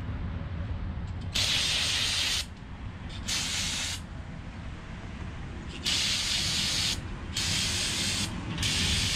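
Aerosol can of brake cleaner sprayed in five hissing bursts of about a second each onto steel connecting rods, degreasing the factory grease off them.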